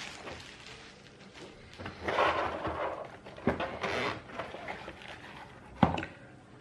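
The gimbal's carrying case being opened and handled: scattered rustles and scrapes, with one sharp click near the end.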